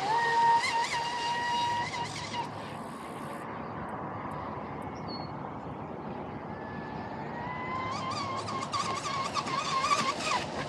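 Sonicwake V2 RC speedboat's electric motor whining at full speed: a high steady whine jumps in at the start and holds for about two seconds, fades, then comes back in the second half and wavers up and down with spray noise before cutting off near the end. The hull is running a little bouncy.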